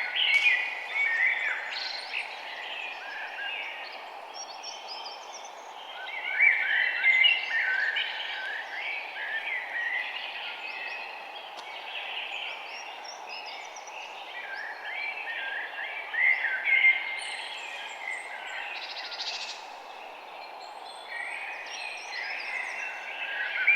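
Rainforest ambience: many birds calling and chirping over a steady low hiss of background noise, the calls thickening into busy clusters several times.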